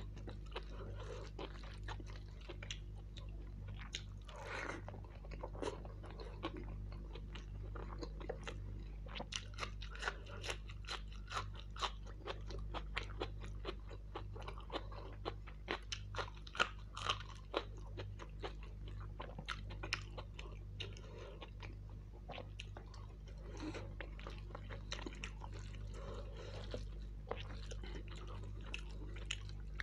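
Close-up chewing of mutton kofta biryani, with many sharp crunching bites that come thickest in the middle, over a steady low hum.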